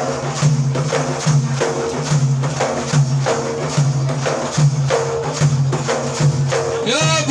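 Instrumental interlude of Iraqi lament music: hand percussion beats a steady rhythm of about three strokes a second under a low, sustained melody line. The singer's voice comes back just before the end.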